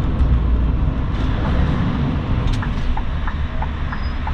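Scania R580's V8 diesel engine running at low speed, heard from inside the cab as a steady low rumble with road noise.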